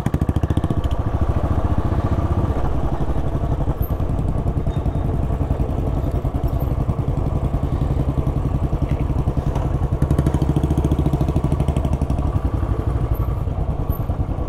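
Royal Enfield Bullet 500's air-cooled single-cylinder engine running at low revs with an even, steady thumping beat, heard close up from the bike as it rolls slowly through town traffic.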